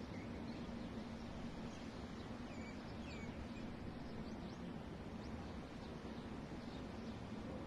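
Steady outdoor background noise with a constant low hum and scattered faint bird chirps; no blast is heard yet.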